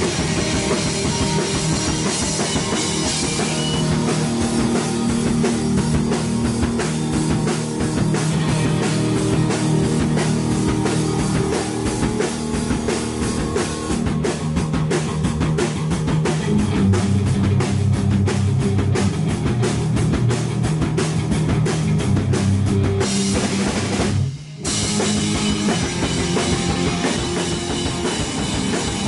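Rock music played by a band: drum kit, electric guitar and bass guitar together, with a brief break in the sound about three-quarters of the way through.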